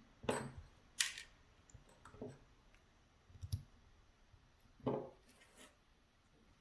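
About five small, sharp clicks and taps of metal parts as a Medeco Biaxial lock is handled and a screw is taken out of its empty sixth pin chamber during disassembly.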